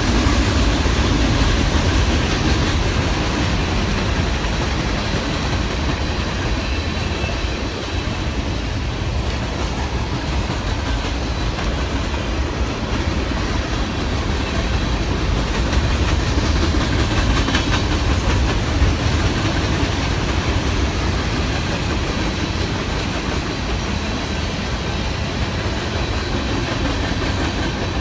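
A train's cars rolling past on the track, giving steady wheel-on-rail noise throughout.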